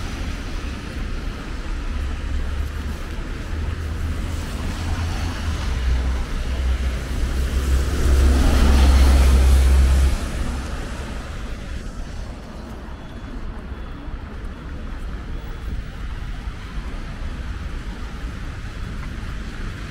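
Road traffic passing on a wet avenue, tyres hissing on the wet road over a low rumble. One vehicle passes loudly about eight to ten seconds in, after which the rumble eases.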